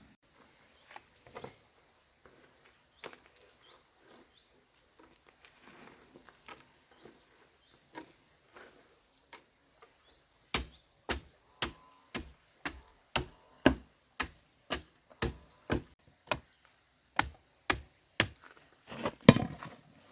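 Hard tool blows on bamboo or wood, about two a second, starting about halfway in, with the loudest blow near the end. Before that there are only scattered light knocks and clicks.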